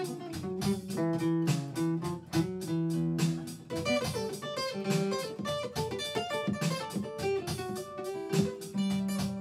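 Acoustic guitar played fingerstyle in a blues pattern: quick picked treble notes over bass notes, an instrumental passage without singing, settling on a held low note near the end.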